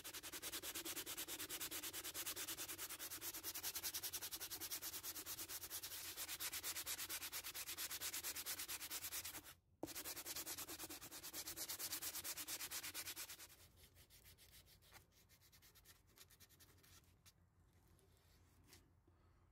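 Hand sanding a thin wooden pickguard's edge: a sanding block rubbed quickly back and forth in rapid strokes, with a brief pause about halfway. About two-thirds of the way in the rubbing drops to quieter, scattered strokes.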